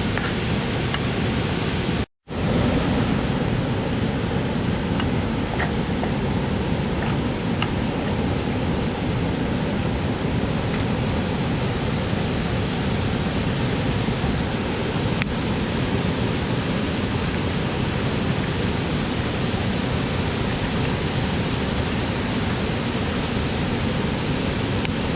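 Steady rush of flowing water from a waterfall and stream. It breaks off for a split second about two seconds in, then carries on unchanged.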